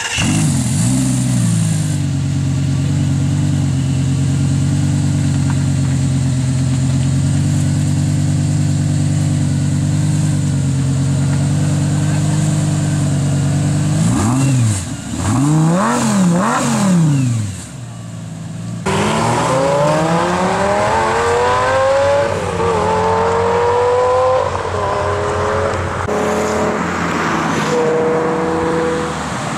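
Lamborghini Gallardo V10 with a Quicksilver aftermarket exhaust idling steadily just after start-up, then revved up and down about three times. It then accelerates hard, rising in pitch through several gear changes.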